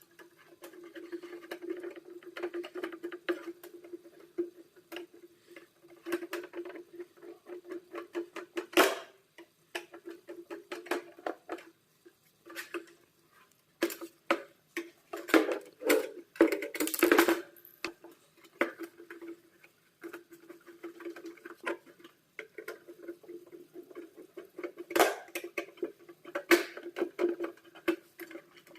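Hands working on the parts of an electric room heater: irregular small clicks, taps and scrapes of metal and plastic pieces, with louder knocks about nine seconds in and again around fifteen to seventeen seconds in. A steady low hum runs underneath.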